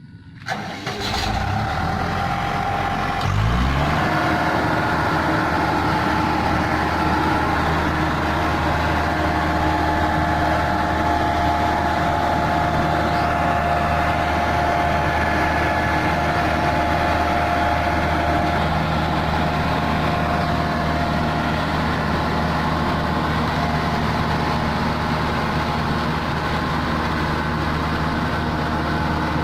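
A heavy vehicle engine running steadily. Its pitch rises about three seconds in, then holds an even note.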